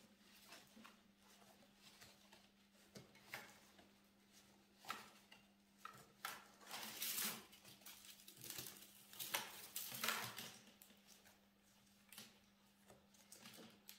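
Soft scraping and rustling of wrapping cane being pulled tight and wound around the boiled willow base sticks of an oval basket base, with the rods rubbing and knocking lightly; the handling is loudest around the middle. A low steady hum runs underneath.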